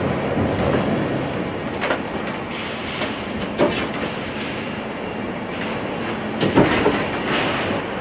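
Industrial machinery running steadily with a clattering rumble, broken by a few sharp metallic clanks about two seconds in, midway and near the end.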